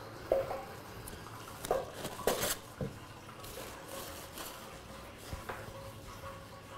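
A few scattered light knocks and clatters of kitchen work, mostly in the first three seconds, over faint steady background noise.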